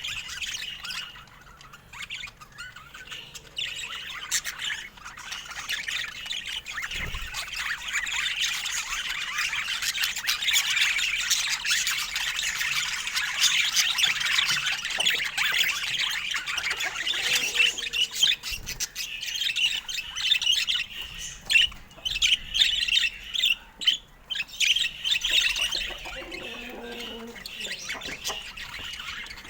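Budgerigar chatter: a continuous run of rapid squawks, chirps and warbles.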